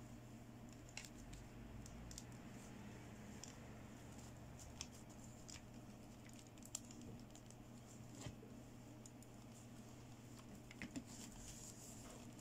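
Faint, scattered soft clicks and taps from hands handling and posing a jointed plastic fashion doll, over a low steady hum.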